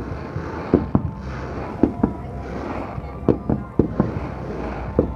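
Aerial fireworks display: about eight sharp shell bursts at irregular intervals, some in quick pairs, over continuous crackling.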